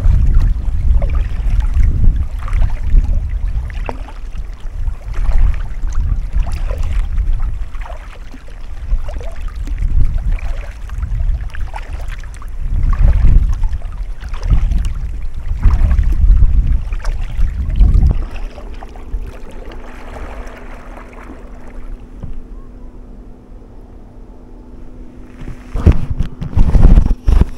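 Kayak paddle strokes splashing in the water over heavy wind buffeting the microphone. About two-thirds of the way through the wind drops and a steady low hum comes in under quieter water sounds. A few louder paddle splashes come near the end.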